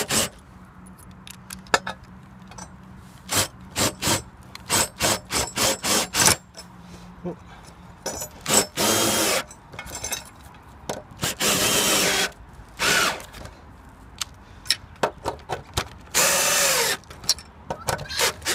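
Cordless drill driving tek-head screws through a metal tile-foot bracket into the roof truss. First comes a string of quick short bursts, then three longer runs of about a second each, the motor's pitch falling during each run.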